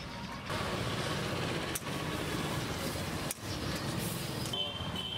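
Battered chicken pieces deep-frying in a wok of hot oil, a dense steady sizzle, with road traffic rumbling underneath. A thin high steady tone comes in near the end.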